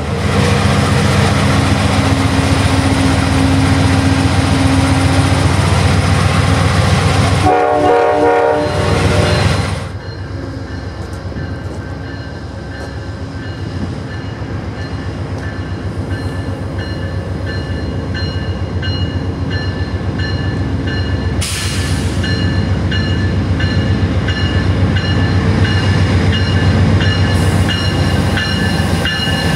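Amtrak passenger coaches rolling past at close range with a loud, steady rumble of wheels on rail, and a short horn-like chord about eight seconds in. Then an Amtrak GE P42DC diesel locomotive draws into the station, growing steadily louder as it nears, with steady high-pitched tones over the rumble and a brief hiss midway.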